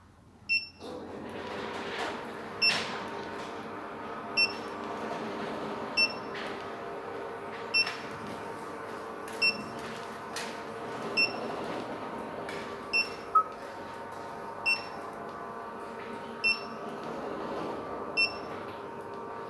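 Short, high electronic beeps from a StarLine car alarm, repeating about every 1.7 seconds while it is stepped through its programming menu. A steady hum runs underneath.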